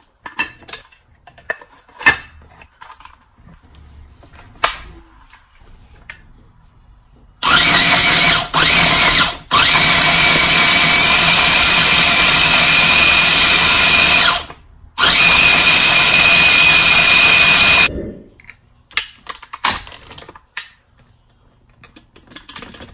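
Countertop food processor running in pulses, puréeing a jerk chicken marinade of onion, ginger, jalapeño and soy sauce: two short bursts, then runs of about five and three seconds with a brief stop between them. Clicks and knocks come first as the lid is fitted, and again after the motor stops.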